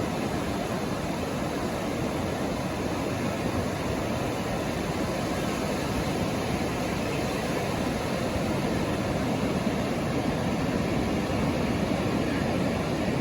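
Steady rushing noise of ocean surf and wind at the shore, swelling slightly toward the end.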